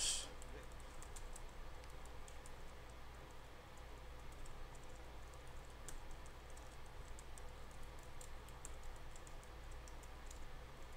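Computer keyboard typing, faint and irregular scattered key clicks, over a low steady hum.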